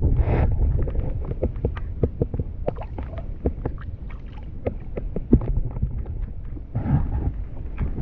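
Wind buffeting the microphone with a low rumble, over many irregular small knocks and taps on a plastic kayak. Two brief louder rushes of noise come at the start and about seven seconds in.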